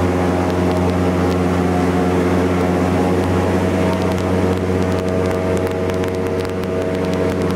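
Boat motor on an aluminium jon boat running steadily at cruising speed, heard from aboard the boat.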